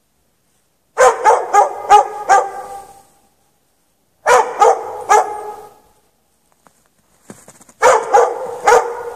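A dog barking persistently in three bouts of three to five quick barks each, with short pauses between the bouts.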